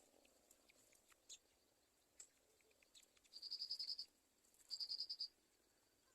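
Faint high-pitched trilled chirping: two quick runs of rapid pulses, each under a second long, past the middle, with a few soft clicks between.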